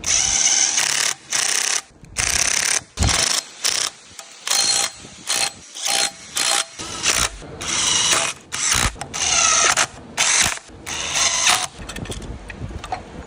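A power ratchet wrench running in about a dozen short on-off bursts, each lasting a fraction of a second to about a second, as fasteners are spun out during disassembly.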